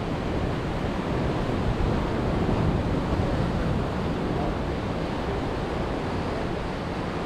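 Pacific surf breaking and washing over the boulders of a rock jetty, a steady rushing wash of water.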